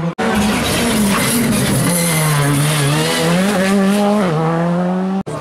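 Rally car engine at high revs passing a stage, its note rising and dropping in steps as the throttle is worked through the bend.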